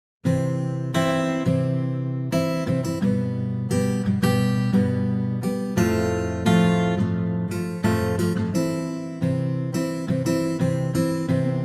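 Strummed acoustic guitar music with regular chord strokes, starting abruptly a moment in.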